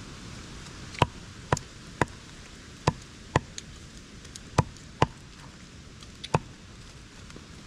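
Eight sharp knocks at uneven intervals, each less than a second or so apart, over a steady low background hiss.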